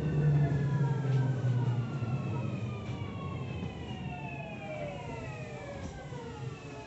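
Tokyu 3000 series train's Hitachi IGBT VVVF inverter and traction motors whining as the train brakes into a station. Several tones fall steadily in pitch and fade as it slows toward a stop, heard from inside the car, with a low rumble dying away about two seconds in.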